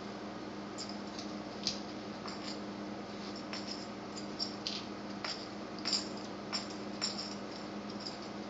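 A puppy's claws clicking and tapping on a tile floor as it scrambles up and paws about: about a dozen sharp light clicks at irregular intervals, over a steady low hum.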